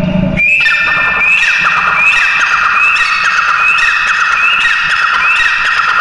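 Grey francolin calling: the same shrill call repeated about every three-quarters of a second, each a high note with a quick run of falling notes under it, starting about half a second in.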